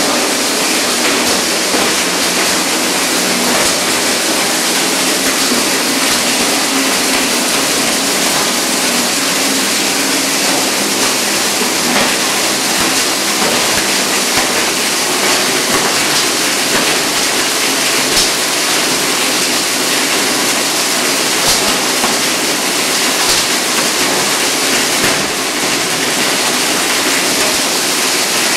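Three-phase 20 HP UPVC column pipe grinder running under load, a loud, steady grinding noise as it chops pipe pieces into granules, with a few sharp cracks as pieces are struck by the blades.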